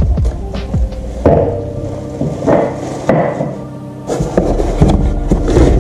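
Knocks and bumps of a cardboard box and its contents being handled, over background music.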